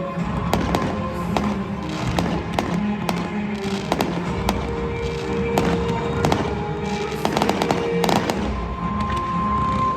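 Fireworks going off in quick succession, a run of sharp bangs with crackling clusters, most dense around three quarters of the way through, over music playing throughout.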